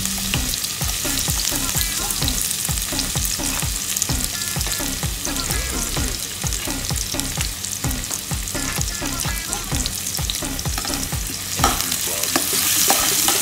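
Chopped garlic sizzling in hot cooking oil in a pan, a steady crackling hiss. Near the end a metal ladle knocks once against the pan.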